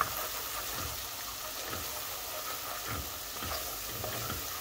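Grated onion, garlic and ground spices sizzling in hot oil in a nonstick pan, stirred with a wooden spatula that scrapes and taps against the pan now and then. The masala is being fried down until the raw onion smell cooks off.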